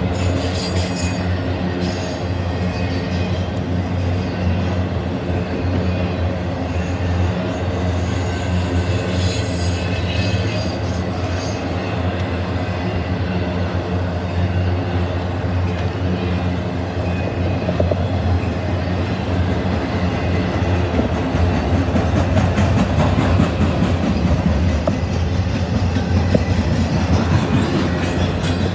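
Intermodal freight train cars, double-stack containers and trailers on flatcars, rolling steadily past on the rails. The sound is continuous and grows a little louder in the last third.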